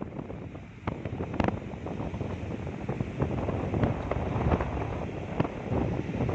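Ocean waves washing onto a beach, with wind buffeting the microphone.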